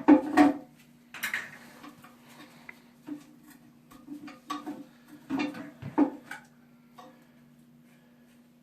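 Toilet tank parts knocking and clattering as they are handled and taken apart, a series of irregular knocks loudest at the start and again about six seconds in, then stopping. A steady low hum runs underneath.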